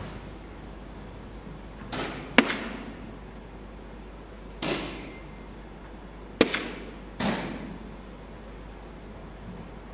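Soft-tip darts striking a Phoenix electronic dartboard: two sharp hits about four seconds apart, each registering a single, with softer swishing sounds near them.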